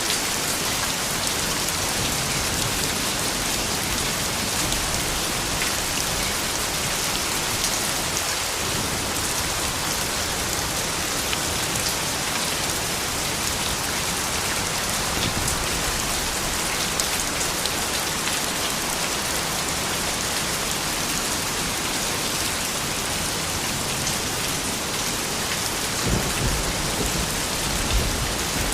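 Steady rain falling, an even hiss of many drops. A brief low rumble comes near the end.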